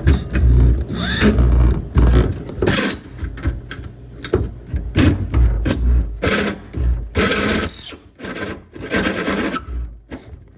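Power drill driving a hole saw into the sheet-metal strut tower in short, irregular stop-start bursts, grating and rasping. The saw keeps catching and kicking rather than biting cleanly.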